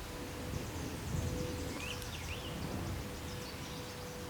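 Quiet woodland ambience with a small bird chirping faintly a few times about two seconds in, over a steady hiss and a faint even tone.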